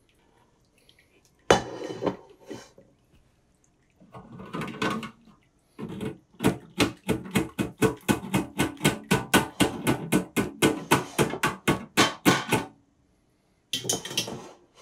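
Kitchen utensil noise while straining beef stock. A stockpot is emptied into wire-mesh strainers with a sharp metal clank and some scraping, then the mesh strainer is knocked against the container in a fast, even run of about five knocks a second for some six seconds, shaking the stock out of the solids.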